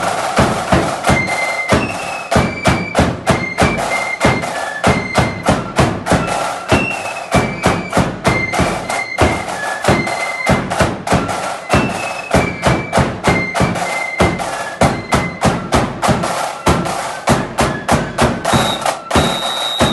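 Flute band playing a march: flutes carry a high melody over a steady beat of side drums and bass drum, and the tune closes on a long held high note near the end.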